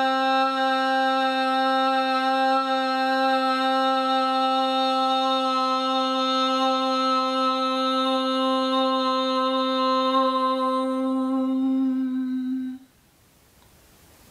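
A woman's voice chanting one long Om at a single steady pitch, the unifying Om that closes a yoga session. It stops sharply about 13 seconds in.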